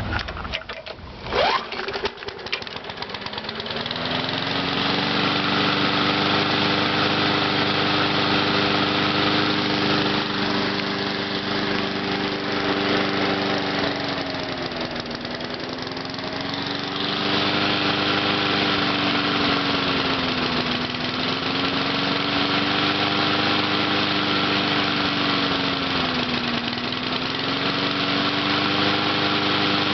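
A Briggs & Stratton 4.5 hp lawnmower engine with a plastic carburetor on top of a metal gas tank is pull-started and catches within a couple of seconds, then revs up to a steady running speed. Its speed dips briefly and recovers three times. The owner puts its poor running down to an old carburetor diaphragm and a dirty air filter.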